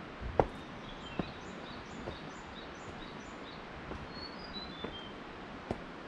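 Small birds chirping, a string of short high notes, some in short falling runs, over a steady background hiss. A few sharp knocks sound too, the loudest about half a second in.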